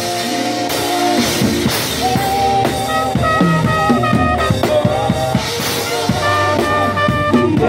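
Trumpet playing a melody in long held notes, backed by a drum kit with regular drum and cymbal hits and a moving bass line.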